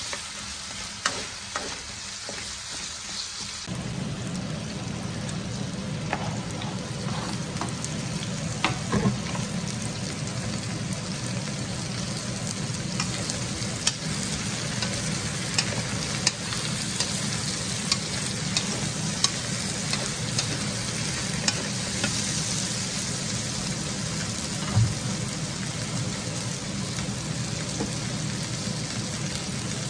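Diced potatoes, carrots and bell peppers sizzling in an aluminium wok, with a wooden spatula stirring them and knocking against the pan now and then.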